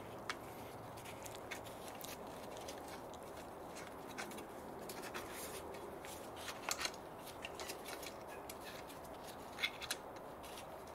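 Faint handling noise: gloved hands turning a car speaker in its plastic mounting ring, giving a few scattered light clicks and rustles over a steady low hiss.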